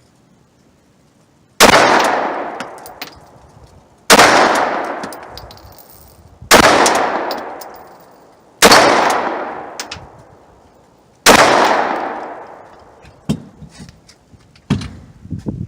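Five shots from a Glock 19 9mm pistol, about two and a half seconds apart, each echoing away over a second or two. A few light knocks follow near the end.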